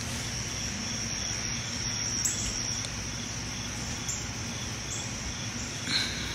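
Insects trilling steadily in a high-pitched chorus, with a fainter call pulsing at a regular beat beneath it.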